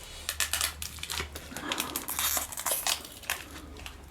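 Small irregular clicks and rustles of brake pads, caliper pins and parts being handled on a bench while rear brake pads are changed.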